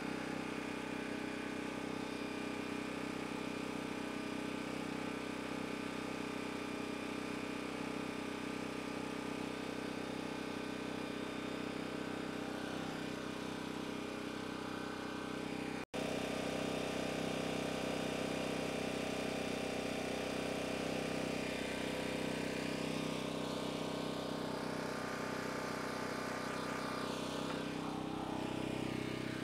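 Champion 3800-watt dual-fuel portable generator's 224cc single-cylinder engine running steadily under a light load from a small fan. The sound breaks off for an instant about halfway through, at a cut in the recording, then carries on.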